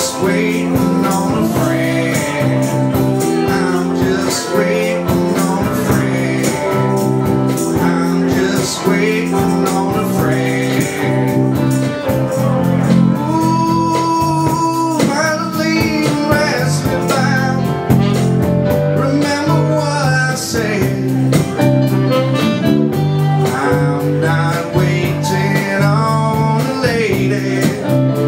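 Live dance band playing a bluesy number, with guitar prominent.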